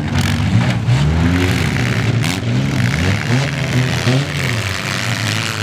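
Several four-cylinder demolition-derby cars revving hard and dropping back again and again, their engine notes rising and falling over one another. A brief crash-like bang comes about two seconds in as the cars ram each other.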